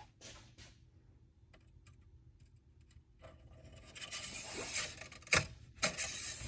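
Handling noises: faint clicks, then rustling and scraping from about three seconds in, with two sharp clicks near the end.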